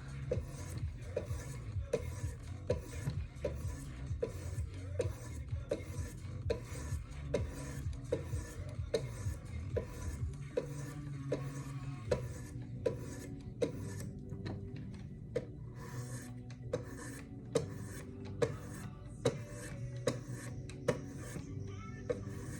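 Oiled 1000-grit stones of a Wicked Edge guided sharpener stroking along a knife blade: even scraping strokes, a little more than one a second, each ending in a light tap.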